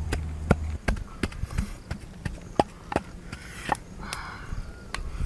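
Wooden pestle pounding in a mortar: sharp knocks at an uneven pace of roughly two a second.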